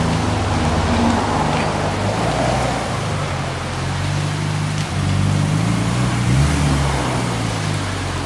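Car engine running at low revs, its pitch shifting a little, over a steady background hiss.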